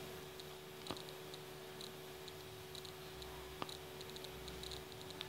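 A few faint sharp clicks of a wire harness and its small plastic plug connector being handled against an LED TV main board: one about a second in, one past halfway and one near the end, with light ticking between. A faint steady hum runs underneath.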